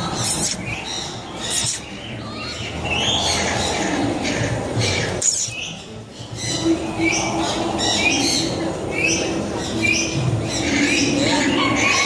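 African grey parrot vocalizing: a rapid, varied run of short whistles, chirps and clicks.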